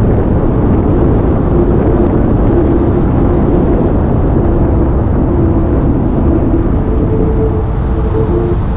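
Steady road and engine noise of a moving truck, a low rumble with a faint drone.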